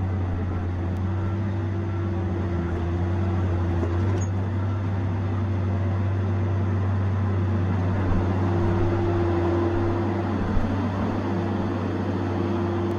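Diesel engine of a Tigercat 870C feller buncher running steadily under work, with one short knock late on.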